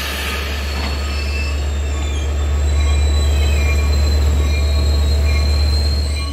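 LIRR train of C3 bi-level passenger cars rolling along the platform and slowing, a steady low rumble with a thin high-pitched wheel and brake squeal over it. The sound falls away near the end as the train comes to a stop.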